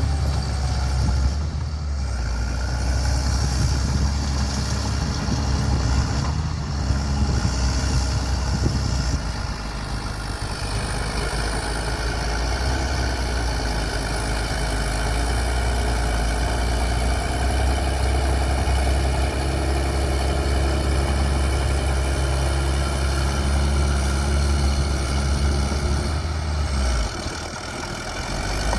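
Bulldozer's diesel engine running steadily with a deep hum; the engine eases a little about ten seconds in, dips briefly near the end, then picks up again.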